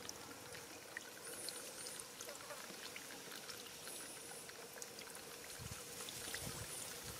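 Faint trickling of shallow muddy water along a drained rice-field channel, with many light ticks and small splashes from the fish stirring and flapping in it.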